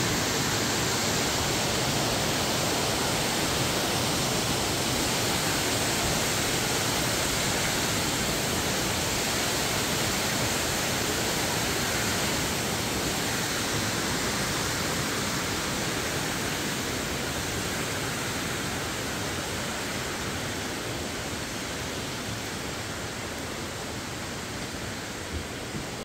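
A tall waterfall's steady rush of falling water, growing slightly quieter in the second half.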